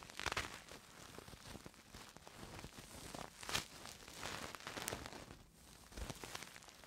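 ASMR ear-cleaning sounds: soft, irregular scratching and rustling close against a microphone's ear, in short uneven strokes.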